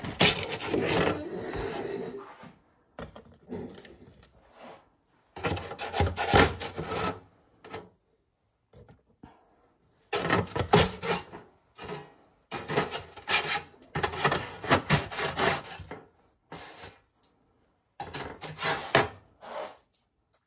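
A spatula scraping across a metal baking sheet in repeated rasping strokes of a second or two each, with short pauses between them, as baked cookies are pried loose from the pan.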